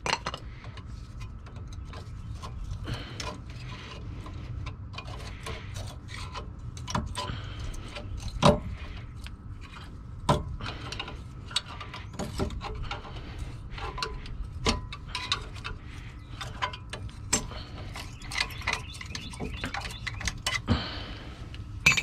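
Irregular metallic clicks, scrapes and clanks of old brake pads being pried out of a 2001 Chevy Tahoe's front brake caliper bracket with a flathead screwdriver and handled, with a few louder knocks, over a faint steady hum.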